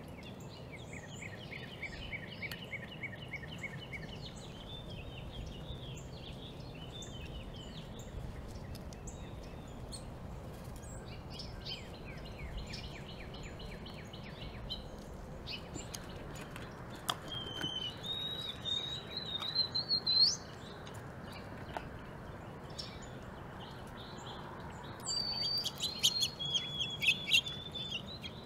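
Small songbirds chirping and trilling in repeated high runs. A louder rising call comes a little past halfway, and a burst of chirps mixed with sharp clicks comes near the end.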